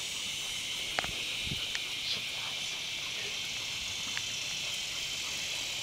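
Steady high-pitched drone of insects, with a few faint clicks scattered through it.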